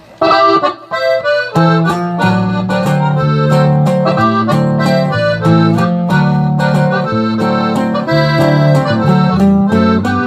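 Accordion playing the instrumental introduction of a norteño-style song, a quick melody of short notes, with a low bass line joining about a second and a half in.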